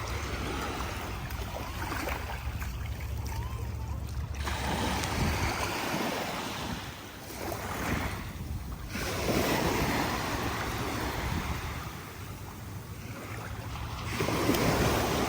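Sea waves washing onto a beach, swelling and falling back several times, with wind rumbling on the microphone.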